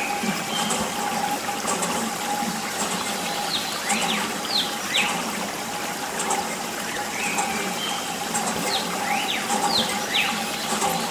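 Thin stream of water trickling from a clear tube and splashing onto a toy tractor's forks and the wet sand, steady throughout. Short high chirps sound now and then over it.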